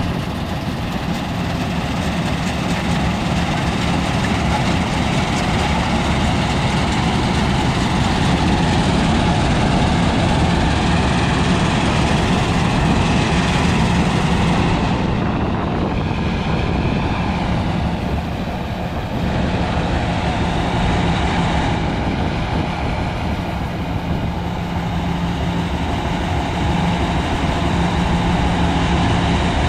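Engine-driven rice-harvesting machine running steadily: a steady low engine hum under a dense mechanical noise, with small dips in loudness now and then.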